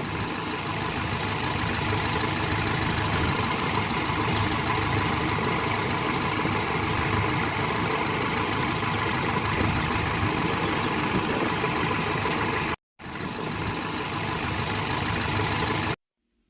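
A small motor running steadily with a rough, rattly texture; it cuts out for an instant about 13 seconds in, then carries on.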